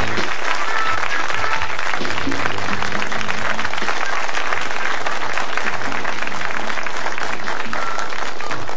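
Studio audience applauding over the programme's theme music, which has a bass line moving underneath the clapping.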